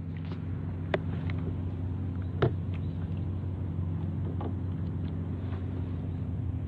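A steady low engine hum, with a few light knocks on the plastic kayak, the loudest about two and a half seconds in.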